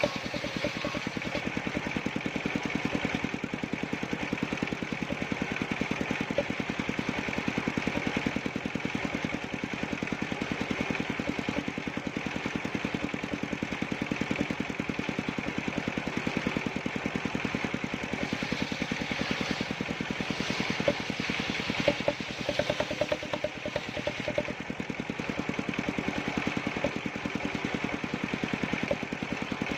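A small engine of a wood-cutting machine running steadily with a fast, even firing beat, with a few sharper clicks about two-thirds of the way through.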